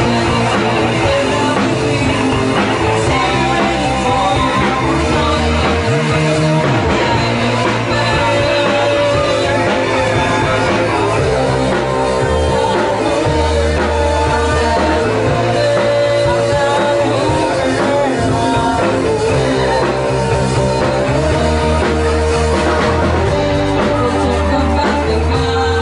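Live rock band playing: electric guitars and a bass line under a lead singer's vocals, going on without a break.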